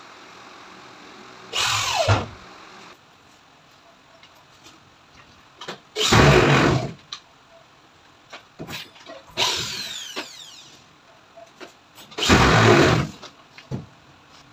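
Corded electric drill run in four short bursts of about a second each, the motor winding down in pitch after some of them, with a few light knocks in between.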